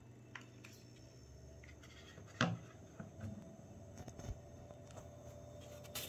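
Xiaomi Mi Smart Projector 2 Pro's cooling fan running with a faint steady hum, joined by a steady higher tone about two and a half seconds in. Scattered light clicks and knocks sound over it, the loudest about two and a half seconds in.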